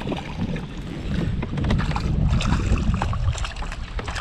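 Wind buffeting the microphone over open water, with a few short splashes about halfway through as a small hooked fish thrashes at the surface beside the kayak.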